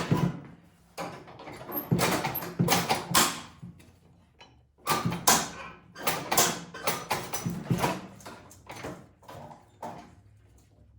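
A run of irregular knocks, scrapes and rattles from hands working on a snowblower's parts, busiest in the first few seconds and again in the middle, then dying away near the end.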